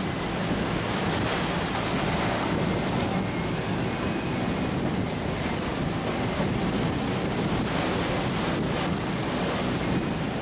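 Strong gale wind, above 40 knots, buffeting the microphone over the steady rush of big breaking waves around the catamaran.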